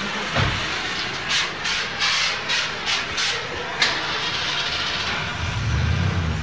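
Automobile repair shop ambience: a low thump, then a run of about six short hissing bursts of air, a sharp click, and a low rumble building near the end.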